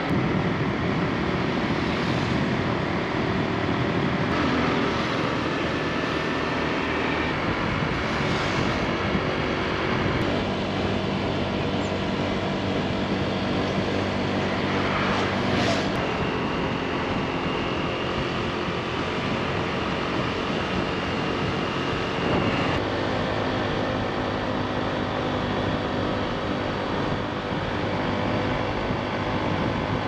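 A motor scooter's engine drones steadily under riding wind and road noise, its pitch shifting a few times.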